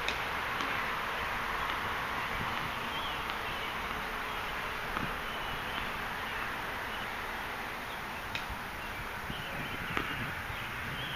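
Steady outdoor hiss with a few faint, sharp pops of tennis balls being struck by rackets in a distant rally on a hard court.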